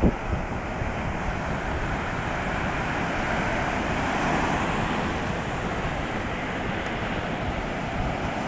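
Atlantic surf breaking on a sandy beach at high spring tide: a steady wash of waves, with wind buffeting the microphone and a brief bump right at the start.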